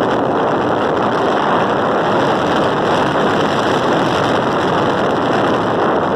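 Heavy wind noise on the microphone during a vehicle ride, a steady loud rush without a break.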